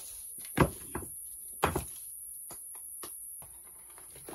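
Two sharp knocks about a second apart, with a few lighter clicks, over a steady high-pitched hiss.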